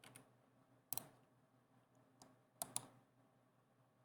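A few isolated computer keyboard keystrokes: a sharp click about a second in, then two close together near the three-second mark, with fainter ones between.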